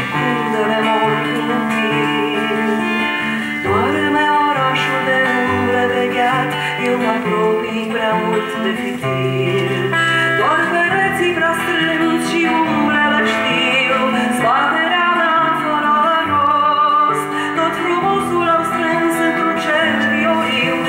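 A woman singing a song to her own acoustic guitar accompaniment, held notes over changing chords.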